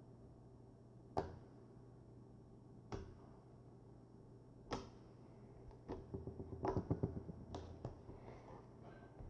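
Slime being pressed with a potato masher: quiet, sharp clicking pops about every two seconds, then a run of quick crackling pops and squelches around six to eight seconds in as the slime is squashed and air pockets pop.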